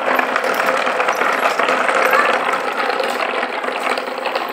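Toy pedal tractor towing two toy trailers, its wheels rolling and rattling steadily over rough concrete.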